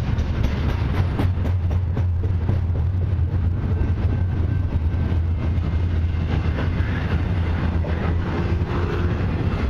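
Double-stack intermodal freight cars rolling past: a steady low rumble of steel wheels on rail with many quick clicks.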